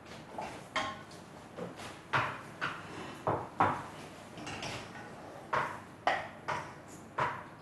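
Serving spoon clinking and scraping against a metal cooking pot as food is ladled out onto a plate: a string of irregular sharp clinks, some much louder than others.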